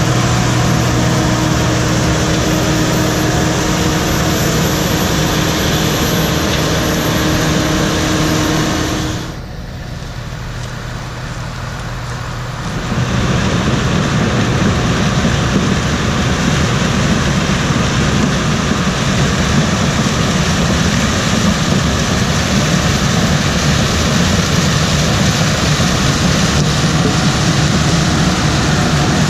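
Heavy diesel machinery engines running steadily with a droning hum. About nine seconds in the sound cuts away and drops for a few seconds, then a louder, rougher engine rumble takes over and carries on.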